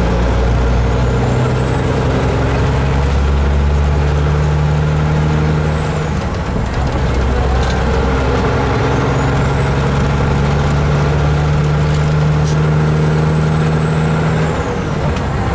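Kenworth truck's diesel engine heard from inside the cab, pulling steadily under load. It dips briefly about six seconds in and again near the end as it changes gear. A faint high whistle rises and fades with each pull.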